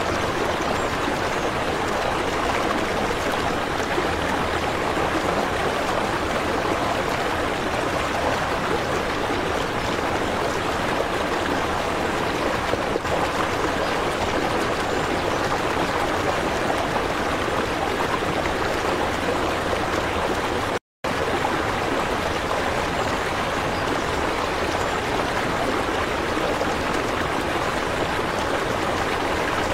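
Steady running water, an even rushing and trickling that cuts out for a split second about two-thirds of the way through.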